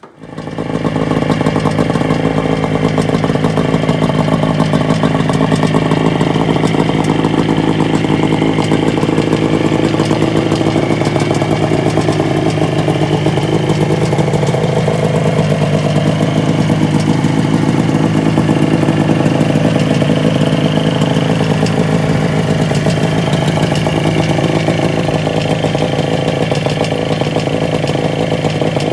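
Kawasaki 340 two-stroke engine of a vintage Arctic Cat Puma snowmobile running steadily, its speed rising and falling slightly in the middle.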